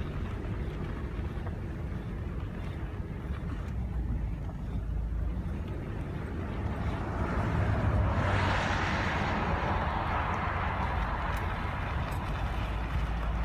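An engine running steadily with a low hum. A rush of noise swells up about seven seconds in and slowly fades.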